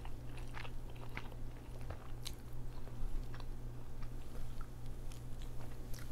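Close-miked chewing and eating: many small wet mouth clicks and smacks as noodles are chewed, with a steady low hum underneath.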